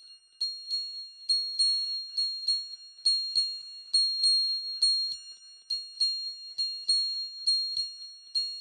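Very high-pitched bell-like chime tones struck in a steady pattern, a loud strike about once a second followed by a softer one, each ringing briefly and fading.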